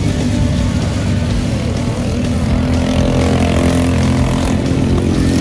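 Racing go-kart engine running at speed, a loud steady buzz whose pitch rises and falls a little with the throttle through the corners.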